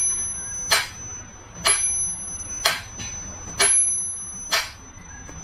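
Sharp taps or clicks repeating evenly, about once a second, each briefly ringing, over a thin, steady high-pitched tone.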